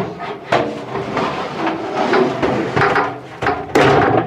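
A tumble dryer's perforated metal drum knocking and scraping against the sheet-metal cabinet as it is manoeuvred back into place. It makes a string of irregular clunks with a short metallic ring after them, the loudest near the end.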